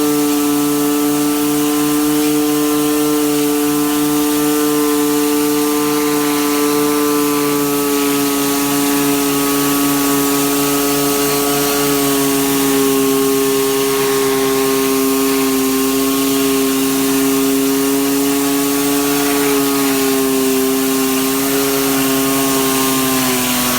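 Pressure washer running steadily at a constant pitch, with the hiss of water spraying from a rotating-nozzle surface cleaner. Its pitch sags slightly near the end.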